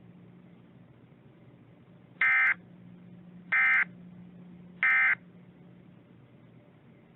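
Three short bursts of Emergency Alert System digital data, the end-of-message code that closes an EAS broadcast: a harsh buzzing screech, each burst about a third of a second long and just over a second apart. A faint steady hum and hiss lies underneath.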